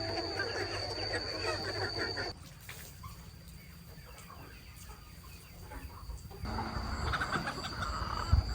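Chickens clucking in a flock, in edited shots: busy, dense clucking that cuts off abruptly about two seconds in, a quieter stretch, then louder again from about six and a half seconds in. A steady high whine runs underneath throughout.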